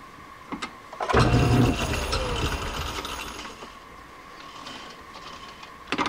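Metal lathe's spindle and three-jaw chuck start suddenly about a second in, then coast down with a falling whine and fade out over two or three seconds. Near the end come sharp metallic clicks of the steel chuck key being fitted into the chuck.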